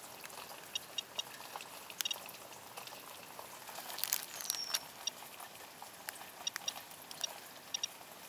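Steady rain and running water, over which a SOEKS Geiger counter sealed in a plastic bag gives short electronic ticks at irregular intervals, often in pairs and threes, as it counts radiation. A brief falling whistle sounds about four seconds in.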